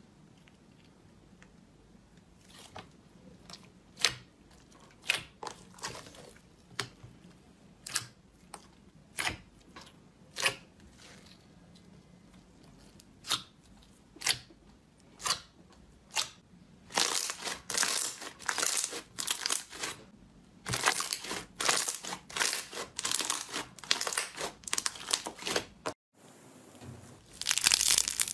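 Clear blue jelly slime squeezed and pressed by hand in a plastic tub: separate wet pops about once a second at first, turning into dense, continuous crackling a little over halfway through as air pockets in the slime burst. After a brief break near the end, another crinkly crackle starts as a different slime is stretched.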